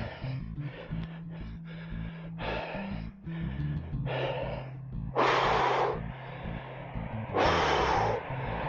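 Background music over a cyclist's hard panting on a steep climb: a steady run of quick breaths, then two loud, long gasps, about five and seven and a half seconds in.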